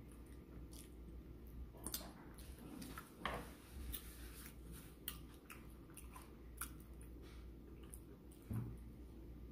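A person chewing a mouthful of bacon cheeseburger with closed-mouth eating sounds: faint, irregular wet clicks and smacks, about one a second.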